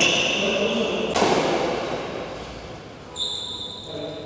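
Badminton rally in a large echoing hall: sharp hits of rackets on the shuttlecock, at the start and again about a second in, and high-pitched squeaks of shoes on the court mat about three seconds in.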